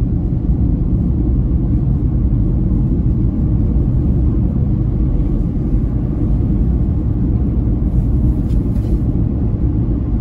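Steady low rumble of a car driving along a country road, heard from inside the cabin: engine and tyre noise.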